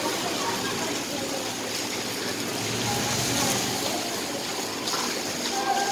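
Steady sizzling hiss from a hot dosa griddle while the vegetable filling is mashed and spread across the dosa.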